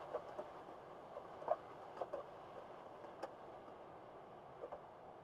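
Metal spoon clinking and scraping against a saucepan while stirring vegetables, a few irregular light taps, the loudest about a second and a half in.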